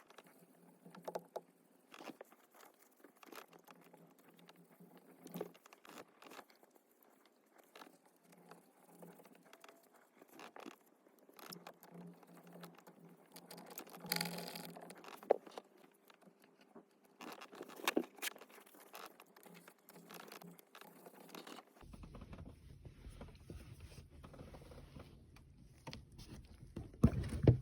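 Faint, irregular scraping and rubbing with scattered small clicks and a few louder ones: a tip scrubbing sticky, degraded soft-touch coating off the plastic steering-wheel buttons of a Mercedes ML W164. A low steady hum comes in under it about two-thirds of the way through.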